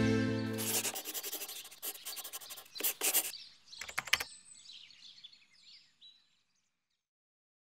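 Accordion music ending about a second in, followed by faint rustling, two or three sharp clicks and a few high chirps that die away to silence after about six seconds.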